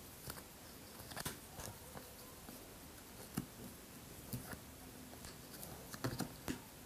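Cardboard jigsaw puzzle pieces handled on a tabletop: faint, scattered taps and small scrapes as pieces are picked up and pressed into place, a few taps slightly louder near the end.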